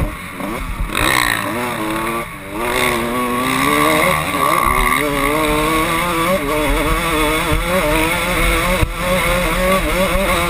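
Kawasaki KX125's two-stroke single-cylinder engine revving hard under acceleration, climbing in pitch over the first few seconds with a brief dip about two seconds in, then holding high.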